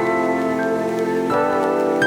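Background music: sustained chords on a soft keyboard, changing chord about a second and a half in.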